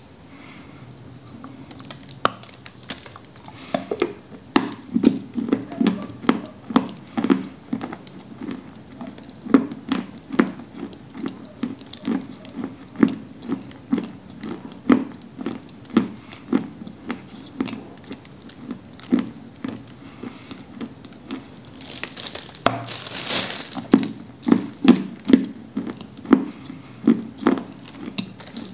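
A crisp bite into a dry chunk of Orsk 'cream' edible clay, then steady rhythmic chewing of the crumbly mouthful. The crunching grows louder and brighter a little past two-thirds through.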